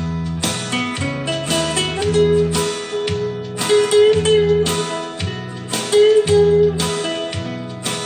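Instrumental break of a country backing track: strummed acoustic guitar chords over a steady bass, with a slow held lead melody above.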